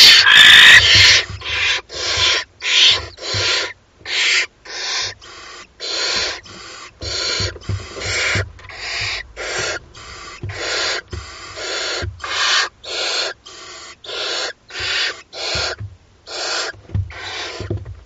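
Barn owl chicks giving their hissing, snore-like begging calls: a steady run of harsh rasping hisses, about two a second, with the loudest and longest hiss in the first second.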